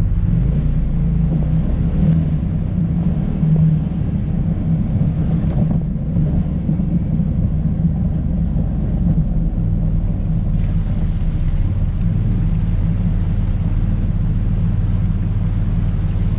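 Off-road vehicle engine running steadily, a low rumble with little change in pitch; a hiss of noise picks up a little about ten seconds in.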